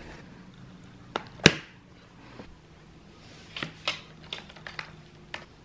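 A sharp knock about one and a half seconds in, then a scattered run of light taps and clicks on a laptop keyboard near the end.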